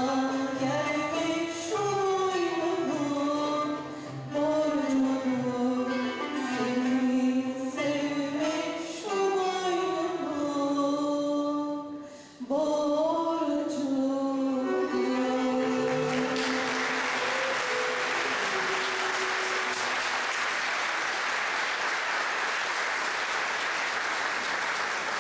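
Female solo voice singing a Turkish classical song over a Turkish art-music ensemble. The final note is held and fades away while applause breaks out about two-thirds of the way in and carries on.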